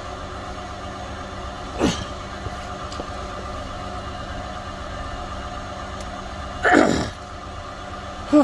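A man's strained grunts of effort, a short one about two seconds in and a louder, longer one near the end, as he forces a tire plug into a tire's nail hole with an insertion tool. A steady mechanical hum runs underneath.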